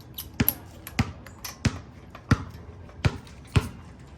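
A run of sharp knocks, about nine in four seconds, unevenly spaced, from work on the car's wheel.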